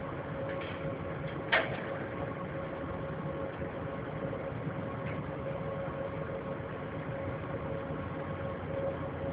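Steady mechanical hum with a faint constant high tone, and a single short sharp crack about a second and a half in.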